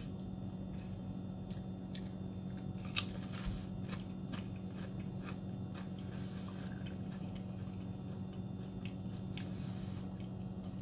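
A Pringles potato crisp being bitten and chewed, with crisp crunches that come most often in the first few seconds and then thin out to occasional ones. A steady low hum runs underneath.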